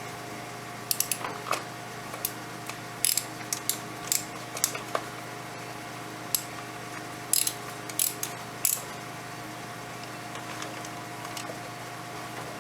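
Irregular sharp clicks and taps of a plastic diesel fuel filter element and its cap being handled and pressed together, about a dozen over the first nine seconds, over a steady background hum.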